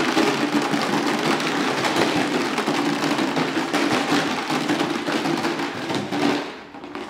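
Rattle jug: a plastic gallon jug with loose hard contents, shaken and moved along the floor, making a continuous loud rattle. It drops off about six and a half seconds in.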